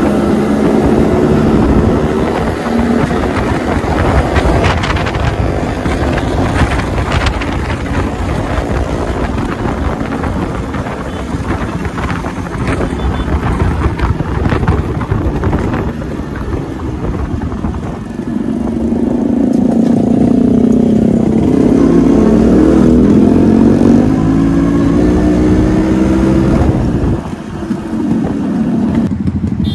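Motorcycles running on the road, with wind rushing over the microphone. From about two-thirds of the way in, the notes of several engines rise and fall across one another, the loudest part, then drop briefly near the end.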